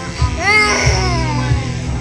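A toddler crying out in one long wail about half a second in, over background music with a steady bass beat and singing.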